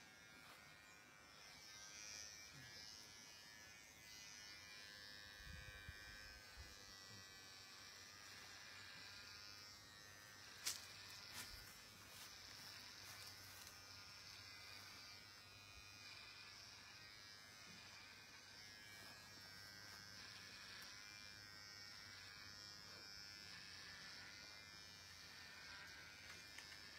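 Electric hair clippers buzzing faintly and steadily as they shave a woman's head, with one sharp click about ten seconds in.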